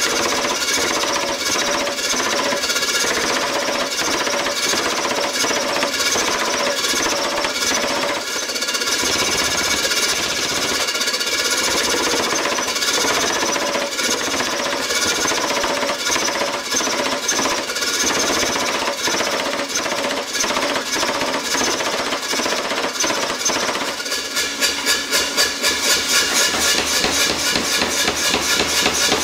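Pneumatic power hammer (air hammer) pounding red-hot steel in rapid, continuous blows with a metallic ring, drawing out and widening the blade of an axe being forged from an old mason's hammer. About five seconds before the end, the blows turn into more distinct, evenly pulsing strokes.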